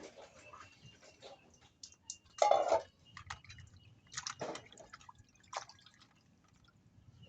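Hands washing raw chicken meat in water: scattered wet splashes and drips, the loudest splash about two and a half seconds in and another a couple of seconds later.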